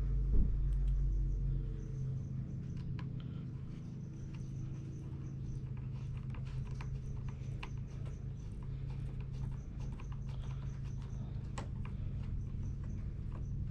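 Light, irregular clicks and ticks of a Phillips screwdriver turning small screws into plastic trim, driven by hand, over a steady low hum.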